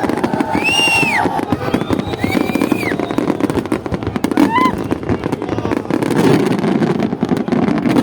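Fireworks crackling and popping in a dense, continuous run, over the chatter of a crowd. A few short whistles rise and fall, near the start, around two seconds in, and about four and a half seconds in.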